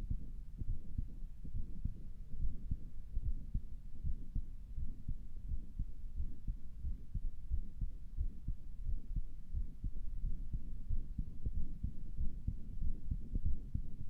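A person's own heartbeat heard through a stethoscope: repeated low beats over a low rumble, with nothing above the bass. The owner thinks the heart sounds weird and wonders whether it is a heart murmur.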